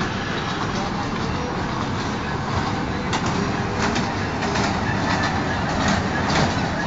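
Children's ride-on train running with a steady rumble, with irregular clicking and clacking from its wheels and cars that becomes frequent about three seconds in.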